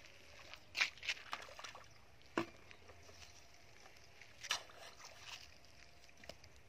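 A hoe chopping and scraping into wet mud and shallow water: several short, separate splashes and squelches.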